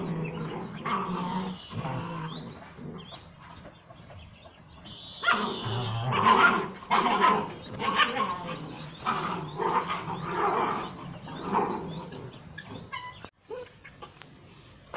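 German shepherd puppies barking in quick short bursts as they play-fight. The barking is busiest and loudest through the middle and thins out near the end.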